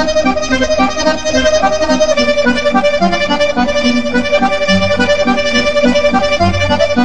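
Piano accordion playing a sustained melody over a steady pulse of short bass notes from the left-hand buttons.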